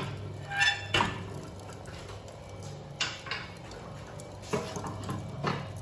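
Stainless steel spit rods of a charcoal souvla rotisserie clanking against the metal rack as a loaded spit is lifted and set down a level. A handful of separate clanks, the first ringing briefly under a second in, others near one, three, four and a half and five and a half seconds.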